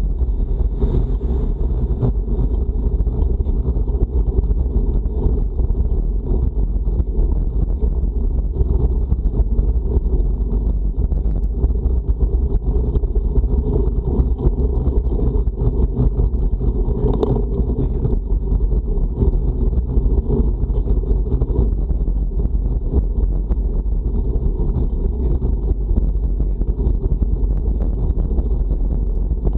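Steady wind rumble on the microphone of a camera on a road bike riding into a strong headwind, with a single short click partway through.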